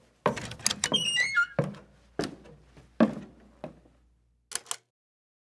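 A string of dull thuds or knocks, roughly one every half second to second, with a short falling squeak about a second in and two quick clicks near the end.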